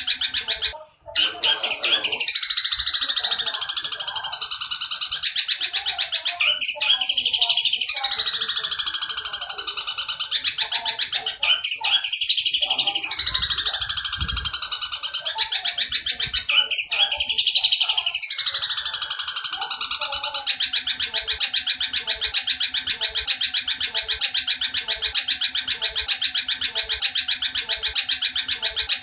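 Long-tailed shrike (cendet) giving harsh, rasping calls that imitate the oriental dollarbird (tengkek buto) at speed. Four long calls fall in pitch, about five seconds apart, and then the calls run on as an even, fast chatter.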